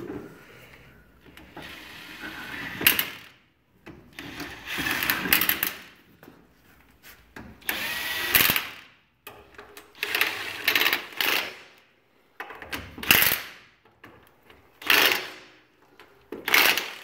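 DeWalt cordless impact wrench running lug nuts down and hammering them tight on a steel wheel, in a string of short bursts about every couple of seconds, one run per nut.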